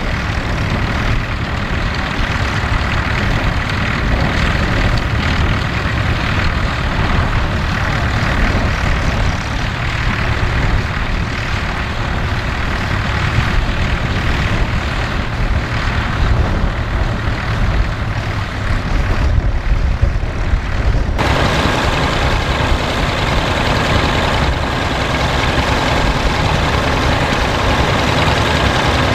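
Vintage Fordson tractor's four-cylinder engine running steadily, mixed with other tractor engines alongside. About two-thirds of the way through the sound changes abruptly to a closer, brighter engine sound.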